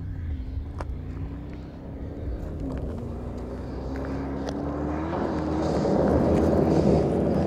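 Mercedes-AMG G63's twin-turbo V8 pulling along a gravel dirt track, its note climbing slowly with a brief dip in pitch about three seconds in. It grows louder as the SUV drives close past, tyres crunching on the gravel.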